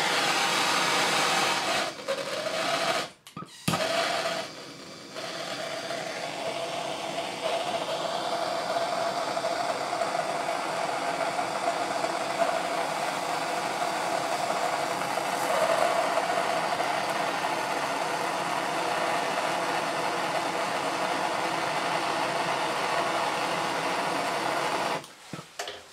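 Handheld gas blowtorch burning with a steady hiss and a faint steady whistle in it, heating a copper pipe repair patch to melt the solder inside it. The hiss cuts out briefly about three seconds in, is weaker for a moment, then runs on steadily and stops just before the end.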